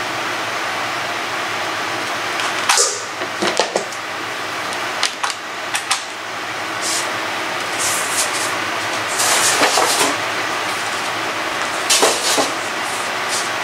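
Scattered clicks, knocks and rustles of things being handled, over a steady background hiss.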